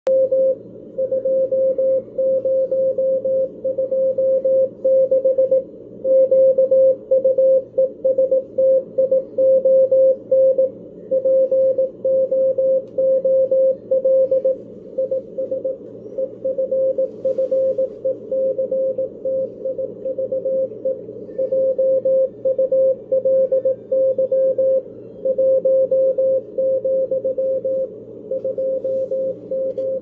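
Morse code from W1AW's code-practice transmission on 160 meters, played through a Chinese Malahit-clone portable SDR receiver: a single steady beat tone keyed on and off in dots and dashes at about 18 words per minute, over the band's background noise.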